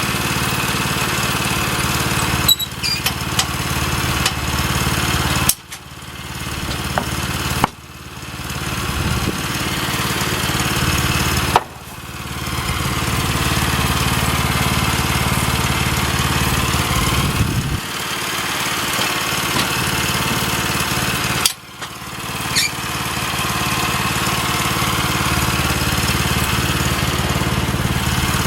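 Small gasoline engine of a Woodland Mills portable bandsaw sawmill running steadily under load. Four times the sound drops away abruptly and then builds back up over a second or two.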